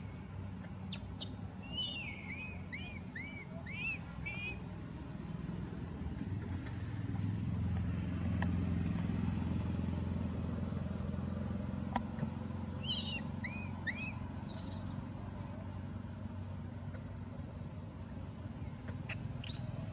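Low, steady engine rumble of motor traffic, swelling in the middle. Two runs of short, high chirping squeaks come over it, about two seconds in and again around thirteen seconds.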